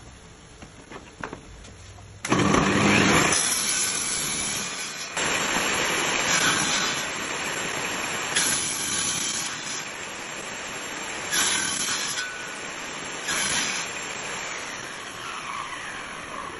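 Table saw switched on about two seconds in, its motor and blade then running steadily while a board is fed through it several times. Each cut through the wood makes the noise louder and brighter for a second or so.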